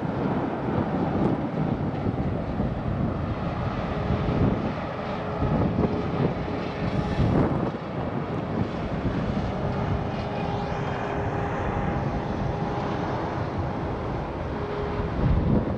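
Steady rumble of freeway traffic, with faint steady whines at times, mixed with wind on the microphone.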